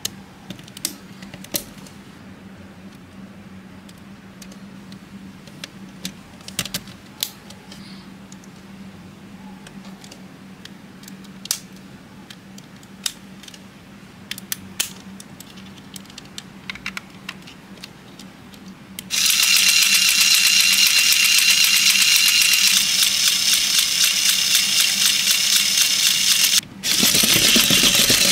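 LEGO Technic beams and pins clicking as they are fitted together by hand. About two-thirds of the way in, the walker's LEGO electric motor starts and runs steadily with a high gear whine and rattle, cutting out for a moment near the end and then running again.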